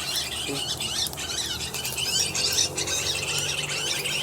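Many small birds chirping and twittering at once in a dense, high-pitched, unbroken chatter.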